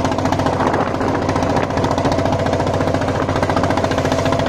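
Wooden river boat's engine running steadily under way, with a rapid, even knocking beat.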